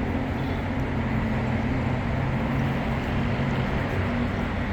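Steady mechanical hum of running machinery, an even noise over a low drone.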